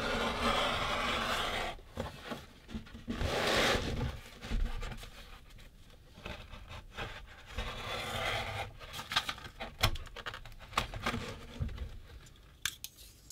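Utility knife drawn through 1.2 mm vegetable-tanned leather in long scraping cuts, the hide rustling against the cutting mat. Several sharp clicks and taps follow in the second half as tools are handled.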